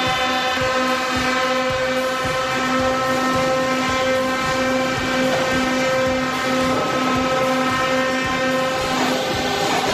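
Machinery running steadily: a loud pitched drone with many overtones over a rattling clatter and scattered knocks, the drone stopping about nine seconds in.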